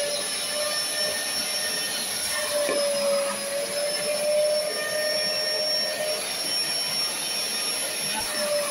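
Vacuum motor of an upholstery cleaning machine running steadily with a high whine, sucking through a hand upholstery tool drawn across a fabric sofa cushion. The whine fades and returns a couple of times.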